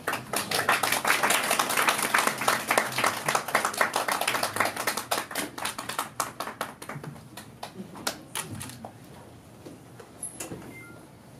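An audience applauding: dense clapping at first, thinning to a few scattered claps and dying away about nine seconds in.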